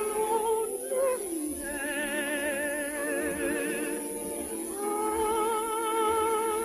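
Orchestral music from a 1950 radio broadcast: a slow melody of long-held notes with vibrato, changing note about a second in and again past the midpoint.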